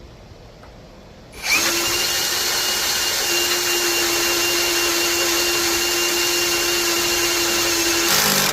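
Cordless drill boring a hole in metal: it starts about a second and a half in, runs at a steady speed, and stops near the end.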